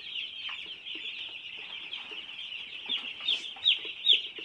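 A flock of three-day-old broiler chicks peeping continuously, many high chirps overlapping, with a few louder single falling peeps about three seconds in.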